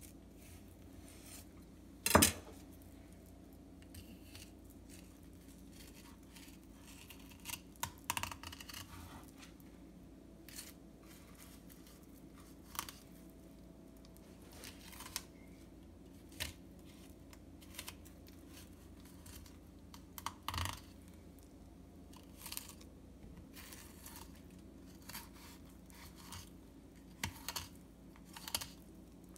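Kitchen knife filleting a morwong on a wooden chopping board: scattered clicks and short scraping crackles as the blade cuts through the scaly skin and along the backbone, with one sharp knock about two seconds in.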